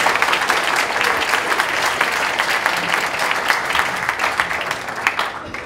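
Hall audience applauding in welcome, with many hands clapping together, dying away near the end.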